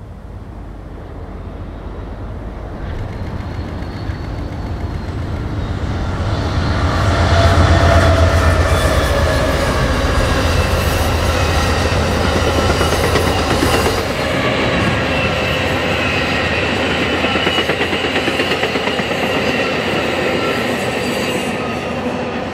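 Amtrak passenger train led by Siemens ALC-42 Charger diesel-electric locomotives passing close by. A low locomotive rumble builds to its loudest about eight seconds in. Then the bilevel Superliner cars roll past with wheel clatter over the rail joints and some high, steady wheel squeal.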